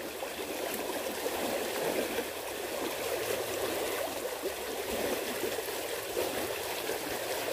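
Steady rush of a small, fast-flowing irrigation ditch, the water running and churning in its channel.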